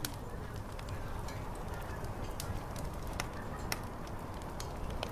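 Crackling wood fire: scattered sharp pops, several per second at times, over a steady low rumble.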